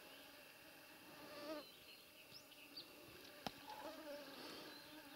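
Faint buzzing of flying insects, swelling and wavering in pitch about a second and a half in and again near four seconds. A single sharp click about three and a half seconds in.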